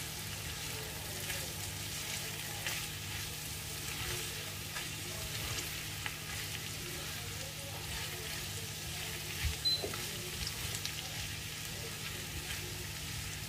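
A spatula stirring dry-fried skipjack tuna and spring onions in a pan, with soft intermittent scrapes over a steady faint sizzle from the pan just taken off the flame. One louder knock comes about nine and a half seconds in.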